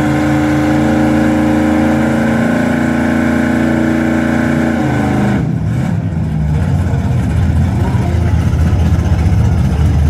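Muscle-car engines running at the drag-strip starting line: held at steady raised revs, then dropping about five seconds in to a choppy, uneven idle.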